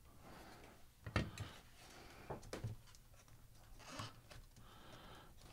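Faint scattered clicks and taps of hard plastic parts being handled, as black plastic trays are lifted out of an instrument cluster's plastic housing.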